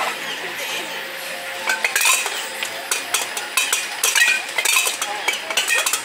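Metal pipes of an outdoor tube xylophone struck with sticks, many irregular clinking strikes, a few per second, each with a short ringing tone.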